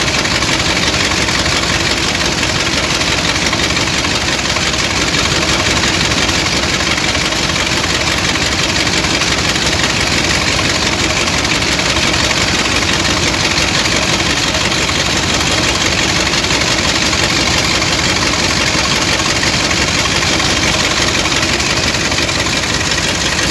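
Boat dredger's engine running steadily and loudly with no change in pace, mixed with the rush of sand-and-water slurry churning into the pit.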